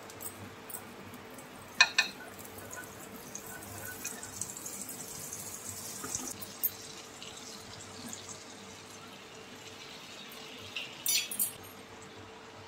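Butter sizzling as it melts on a hot dosa tawa, a fizzing crackle that swells a few seconds in and then fades. A metal spoon clicks sharply against the griddle about two seconds in, and there are a few quick clicks near the end.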